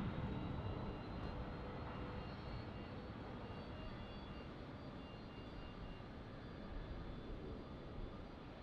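Jet airliner engine noise fading away as the aircraft moves off: a broad rumble and rush that grows steadily quieter, with faint steady high-pitched whine tones.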